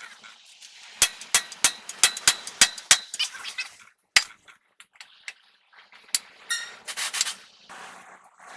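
A run of sharp metallic clicks and clinks, about three a second for a few seconds, then a single one and another cluster near the end.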